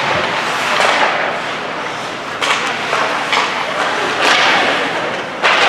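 Live ice hockey play: several sharp knocks of sticks, puck and players hitting the boards, over the steady scrape and hiss of skates on ice.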